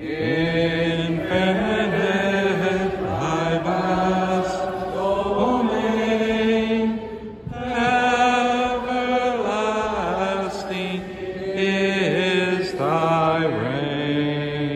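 Voices singing a slow, chant-like hymn in long sustained notes, with a short pause between phrases about halfway through.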